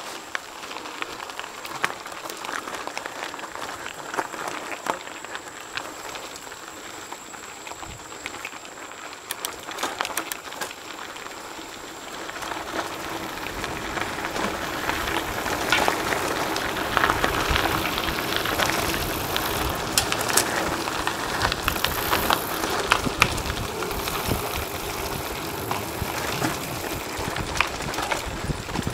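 Mountain bikes rolling over a rough dirt trail: tyres crunching on gravel with steady small clicks and rattles from the bikes. It gets louder and rougher about halfway through.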